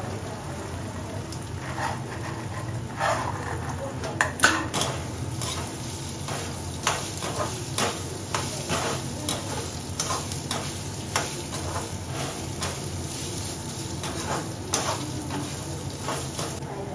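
Peas sizzling steadily in hot oil in a black iron kadai while a perforated metal skimmer stirs them, scraping and clicking against the pan. The sharpest knocks come about four seconds in, followed by a run of regular scrapes, about two a second, that dies away near the end.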